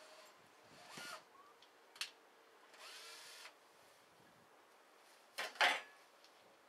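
A few short scrapes and knocks of hand work in a chicken coop, the loudest pair about five and a half seconds in.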